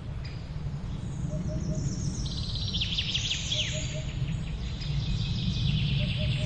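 Several birds chirping and twittering, with a flurry of quick high, downward-sweeping notes two to four seconds in, over a steady low outdoor rumble. A soft, low three-pip sound recurs a few times underneath.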